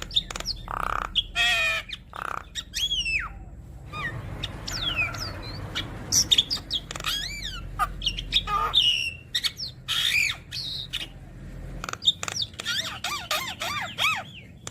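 Javan myna (jalak kebo) singing a long, varied song: harsh squawks mixed with rising and falling whistles and fast warbling chatter, strung together with many borrowed phrases.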